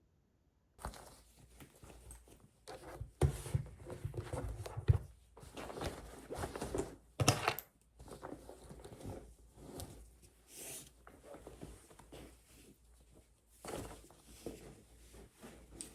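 Close handling sounds of objects being moved and worked by hand: irregular rustling and scraping with sharp knocks, starting about a second in, busiest and loudest between about three and five seconds in.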